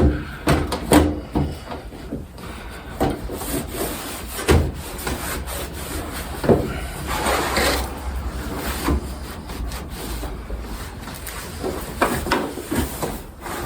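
Handling and cleaning a kerosene heater's parts: scattered light knocks and clicks with stretches of rubbing and scraping.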